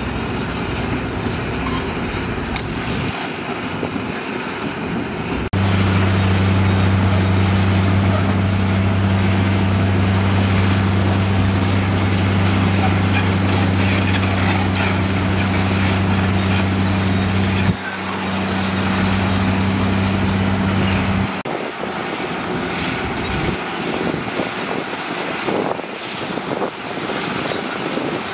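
Diesel engines of heavy long-reach hydraulic excavators running under load, with a continuous rumble and noise. A steady low engine drone comes in sharply about five seconds in and cuts off abruptly a little after twenty seconds.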